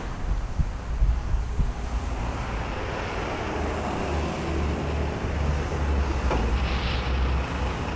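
Low, steady rumble of a lorry engine in a cartoon street, growing a little louder as it approaches.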